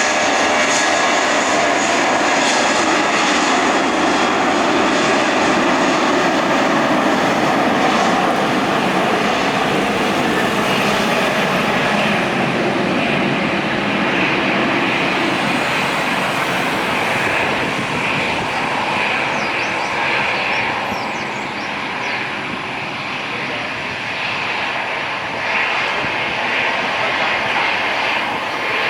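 Airbus A320-family jet airliner's engines running loud and steady, with a whine of engine tones over the rush of jet noise, easing a little about two-thirds of the way through and then building again.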